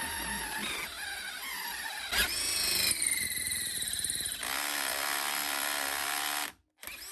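Bosch UniversalHammer 18V cordless SDS-plus rotary hammer drilling a 13 mm bit into steel, the motor whining with a squeal of the bit cutting metal that glides up and down. About six and a half seconds in, the bit cants, the slip clutch engages and the tool cuts out suddenly.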